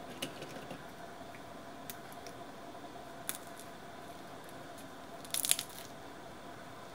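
Crisp butter murukku being handled: a few faint clicks and a short burst of crackling about five seconds in as the pieces rub and crunch against each other in the hand, over a faint steady hiss.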